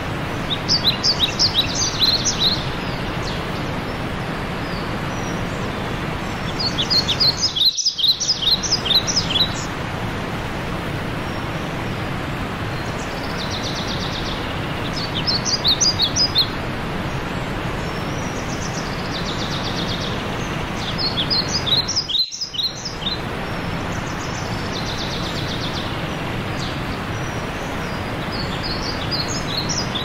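Steady rush of a cascading mountain stream, with a songbird singing a short phrase of rapid high notes about every six to eight seconds. The water noise drops out for an instant twice.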